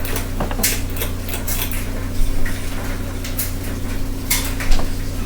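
Litex Builder ceiling fan running on medium: a steady motor hum with irregular clicks and clatters, the rattle of a fan that wobbles badly.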